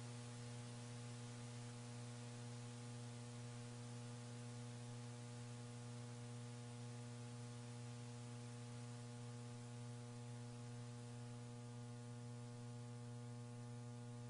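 Steady electrical mains hum with a faint hiss, from the broadcast audio line; no rocket noise is heard.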